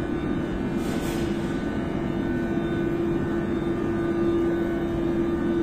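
Athens Metro train moving along the station platform: steady rumble of wheels on rail with a constant hum from the train's motors, and a brief hiss about a second in.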